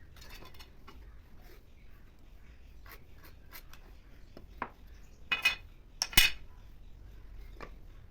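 Tools being handled on a workbench: scattered light clicks and knocks, with louder metallic clatters about five and six seconds in.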